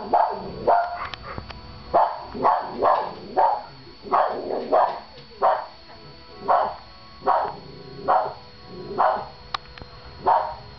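A Cavalier King Charles spaniel barking at the television: a long string of sharp barks, about one or two a second, with a short pause about halfway through.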